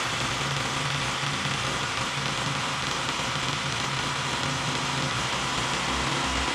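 Corded electric drill with a 6 mm bit running steadily, boring slowly into porcelain floor tile: a steady motor hum with a harsh hiss over it.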